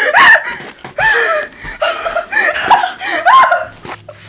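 A man laughing hard in repeated breathy bursts, fading out in the last second.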